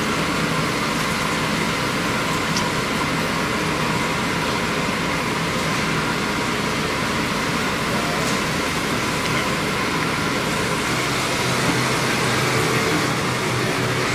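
Steady noise of a commercial kitchen's extractor hood fans running, with a constant hum under it.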